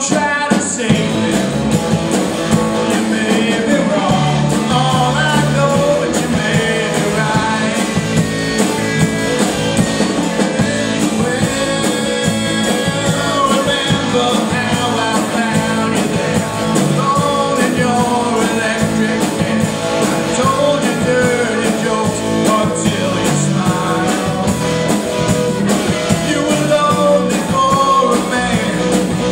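Rock band playing a song at a steady loud level, with guitars, bass and drums.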